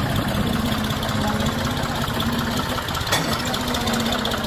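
Diesel engines of a John Deere 5050D and a Swaraj 960 tractor running steadily, hitched together for a tug-of-war, with a sharp click about three seconds in.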